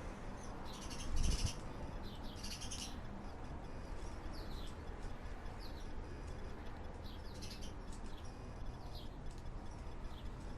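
Small birds chirping: clusters of high chirps, then a run of short downward-slurred notes. A low rumble runs underneath, with a brief low thump about a second in.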